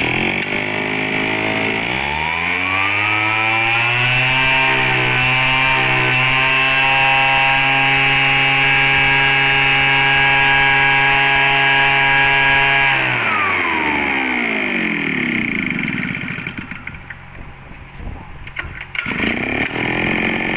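The 50cc two-stroke engine of a backpack mist blower (a leaf blower and lime sprayer) is run up to high revs about two seconds in. It holds there steadily for some nine seconds, then is throttled back and winds down about thirteen seconds in.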